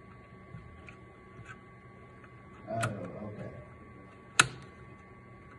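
A steady faint high-pitched electronic whine, a few soft ticks, and one sharp click about four seconds in.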